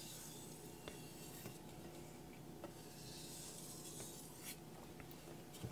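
Faint scraping of a carbon steel knife edge drawn lightly across a wet Naniwa Aotoshi whetstone: deburring strokes, with a few small clicks.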